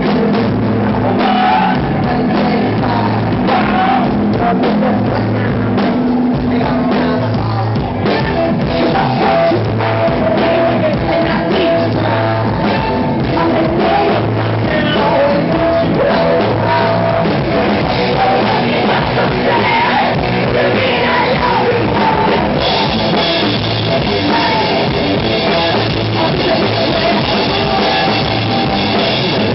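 A rock band playing live: electric guitar, bass and drum kit driving a steady beat, with a vocalist singing and shouting into a microphone.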